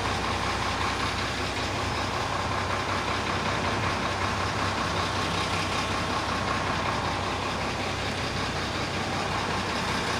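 Steady drone of heavy machinery at a concrete batching plant, with a low hum and a thin steady whine running through it.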